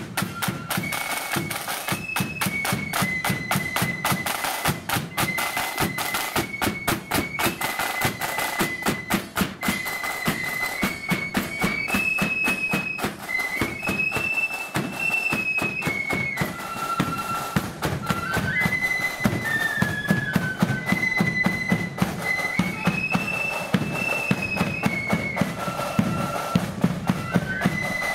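Blood-and-thunder marching flute band playing a tune: many flutes in unison carry a high melody over rapid, driving side drums and a bass drum beat.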